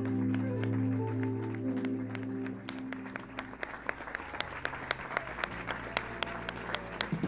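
Music holding a sustained chord that fades out about three seconds in, giving way to scattered hand claps that come more and more often toward the end.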